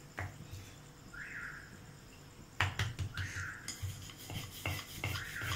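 Wooden rolling pin rolling out a flour-dusted ball of maida dough on a round rolling board. A knock about halfway in, then rhythmic thuds and rubbing as the pin goes back and forth.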